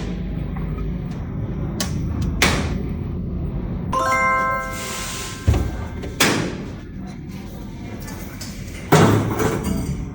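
Background music under several sharp knocks and thuds, the last, about nine seconds in, among the loudest. About four seconds in, a brief chime of several steady tones sounds together for roughly a second.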